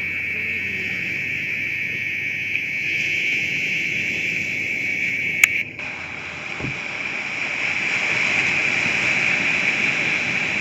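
Steady rushing noise of wind and surf through a camcorder's microphone, with one sharp click about five and a half seconds in where the recording cuts.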